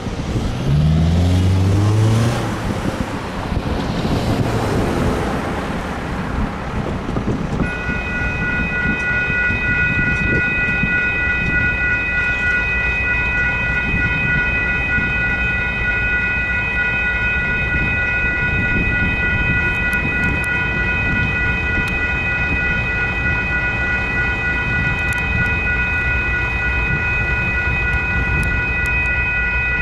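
A semi truck crosses the tracks and pulls away, its diesel engine note dropping over the first couple of seconds. About eight seconds in, the railroad crossing's electronic bells start and keep ringing with a steady high tone: the crossing has activated for an approaching train.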